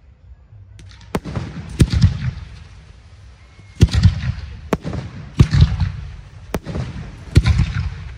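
Aerial firework shells bursting in a series of sharp bangs, about eight in all, starting about a second in and coming at irregular gaps of under a second to two seconds. Each bang trails off in a low rumble.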